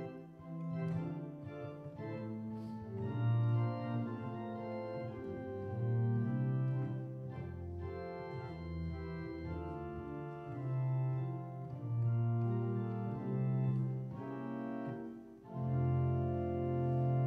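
Organ playing slow, held chords that change every second or two, with a brief dip near the end before a louder chord comes in.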